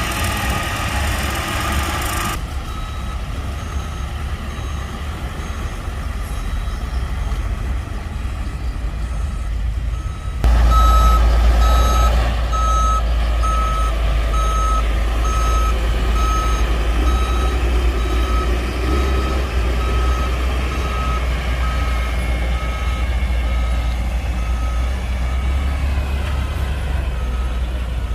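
Heavy construction vehicle's diesel engine running, with its reversing alarm beeping steadily about once a second. The engine and beeps get suddenly louder about ten seconds in.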